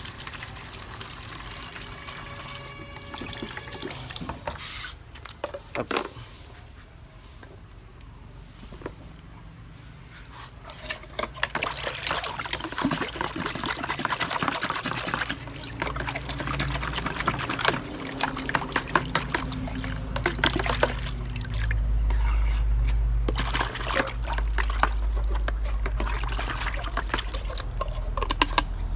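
Water running and splashing as baby milk bottles and utensils are washed by hand, with scattered small knocks and clatter of plastic; the washing gets louder and busier partway through.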